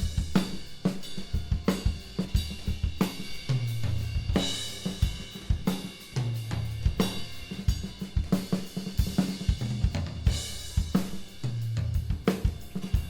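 Acoustic drum kit playing a steady groove: hi-hat, cymbals, snare and kick, with deep low drum notes coming back about every three seconds. It is heard through room microphones while the mix is switched between mid-side, Blumlein-pair and mono room mics.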